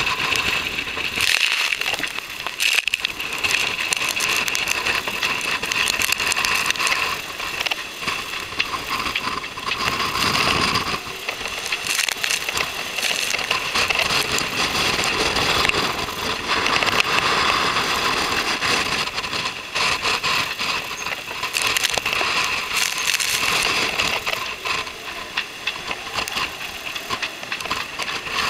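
Strong wind buffeting the microphone on the deck of a Class 40 racing yacht beating upwind, mixed with the rush of water and spray along the hull in a rough sea. A loud, continuous hiss with frequent crackling hits, swelling and easing as gusts and waves come through.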